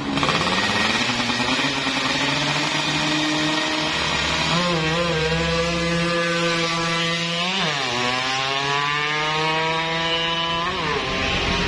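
Yamaha F1ZR two-stroke single, bored to a 116 cc spec, accelerating through the gears. Its pitch climbs steadily and drops sharply at upshifts about two-thirds of the way in and again near the end.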